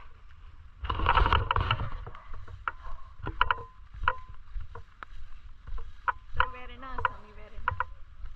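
Low, uneven rumble of wind on the microphone, with rustling and scattered knocks from the handheld camera and clothing. A louder rustle comes about a second in, and a short pitched sound, like a brief voice, about two-thirds of the way through.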